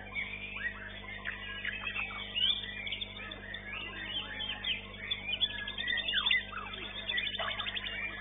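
White-rumped shama (murai batu) singing a fast, varied run of whistles and trills, over a steady low electrical hum.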